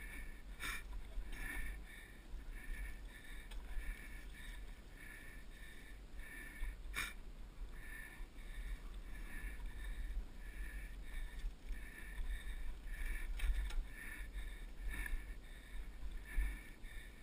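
Mountain bike ride on a dirt pump track heard from a helmet camera: a steady low wind rumble on the microphone, a faint repeating high tick about twice a second, and two sharp knocks, one about a second in and one near the middle.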